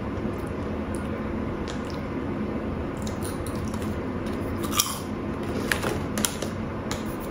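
A person chewing a crunchy lobster-flavoured snack, with faint scattered crunches through the second half and one louder crunch, over a steady background hum.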